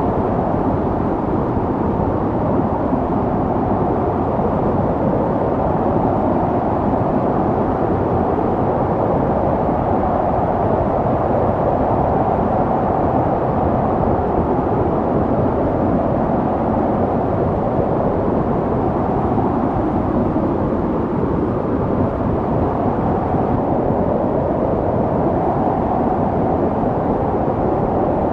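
Snowstorm wind blowing steadily: a dense, low rushing noise with a slow, wavering rise and fall in pitch.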